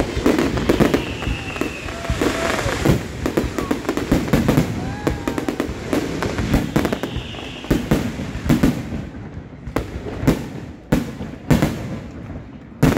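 Fireworks display: a dense run of bangs and crackling bursts, thinning in the last few seconds to a handful of separate loud bangs.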